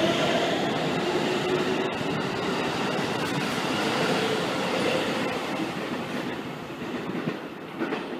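A red Keikyu electric train runs past along the station platform: its wheels rumble on the rails, with a faint motor whine rising in pitch. The sound dies away toward the end as the last car clears the platform.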